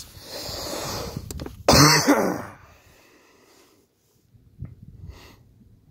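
A man's exasperated long breathy exhale, then a short rough throat-clearing about two seconds in, followed by quiet with a couple of faint taps.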